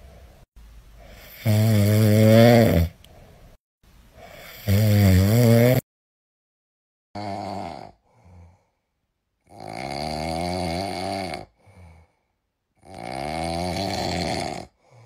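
A person snoring loudly as a sound effect: two long, low, rattling snores, then a sudden cut to silence and a differently recorded snorer with three snores about three seconds apart, short soft breaths between them.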